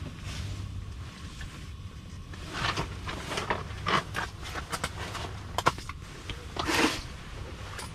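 Rustling and scraping of heavy winter clothing and gear as an angler shifts about, in several short bursts over a steady low rumble.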